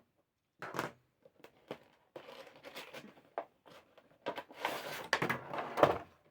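Action figure packaging being opened by hand: cardboard and plastic rustling, scraping and tearing, with sharp clicks, loudest near the end.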